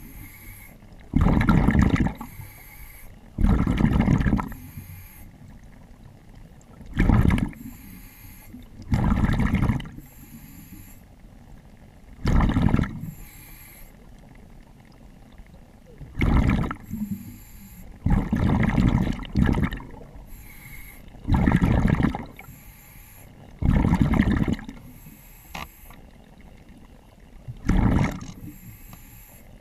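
A diver breathing underwater through a regulator: a loud rush of exhaled bubbles about every two to three seconds, about ten times, with quieter stretches between breaths.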